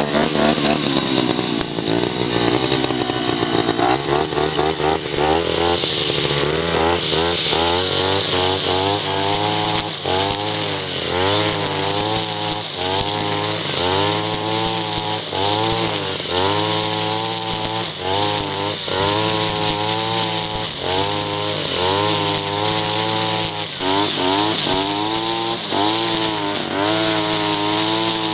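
Tabata backpack brush cutter running at high speed, its 2.4 mm nylon line cutting through grass and weeds. The engine pitch rises and falls about once a second as the cutter is swung through the grass, over a steady high hiss.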